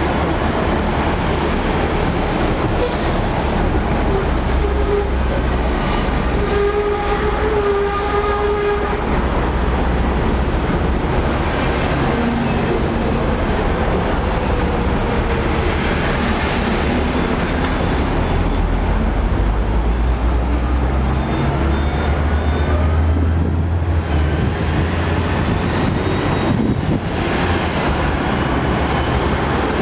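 Hong Kong electric double-decker tram running along its tracks, heard from the upper deck: a steady rumble of steel wheels on rail and the running gear, with brief pitched whines now and then, the longest about seven to nine seconds in.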